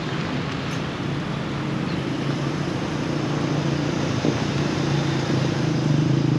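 Road traffic: a steady wash of vehicle noise with a low engine hum from a nearby motor vehicle that grows louder over the last two seconds.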